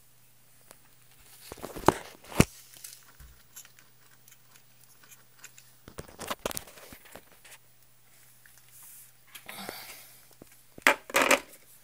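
Electrical crackling and sharp pops from a faulty GoolRC 60A brushless speed controller (ESC) that is burning. There are two loud pops about two seconds in, more crackles around six seconds, a fizzing hiss near ten seconds and a dense burst of crackles near the end. A faint steady low hum runs under it all.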